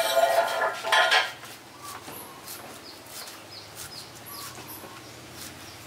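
Metal kitchenware clanking: two loud ringing clangs within about the first second, then only faint small clicks.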